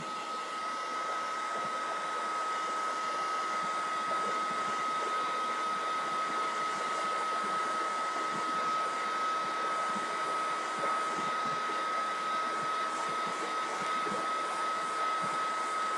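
Handheld hair dryer running steadily, a high whine over the rush of its airflow, drying freshly applied chalk ink on a cloth bib.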